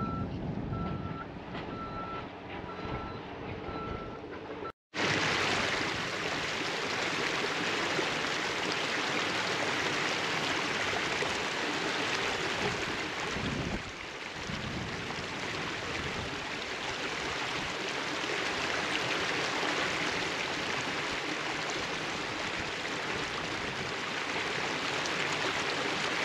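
A heavy machine's reversing alarm beeping at a steady pace over engine rumble for the first few seconds. After a sudden cut, a steady rush of flood-swollen river water runs for the rest.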